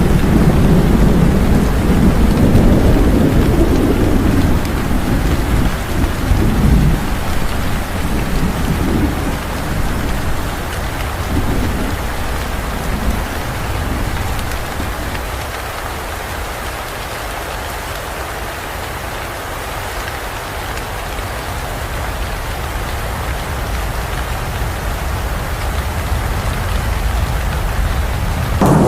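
Heavy rain falling steadily, with a low rolling rumble of thunder over the first several seconds that dies away.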